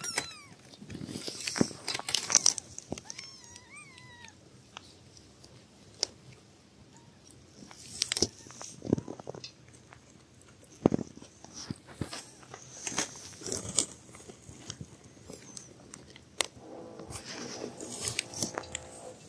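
Newborn kittens suckling at their mother cat's teats: irregular smacking and clicking of nursing mouths, with a short kitten mew about three seconds in.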